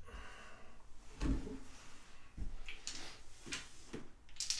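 A handful of light, separate clacks and taps of casino chips being set down and handled on a felt craps table.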